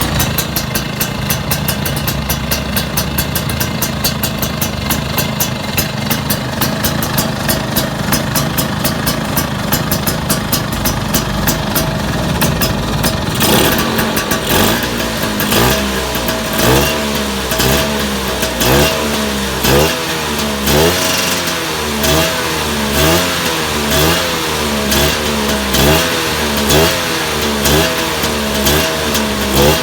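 Vespa PX two-stroke single-cylinder scooter engine with a big-box exhaust, running steadily after a carburettor tune-up. From about halfway it is blipped over and over, one short rev rising in pitch roughly every second.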